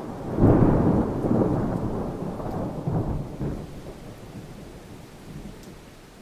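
Thunder: a clap that breaks in sharply about half a second in and rolls on as a deep rumble with crackle, surging again around three seconds and then fading, over a hiss of rain.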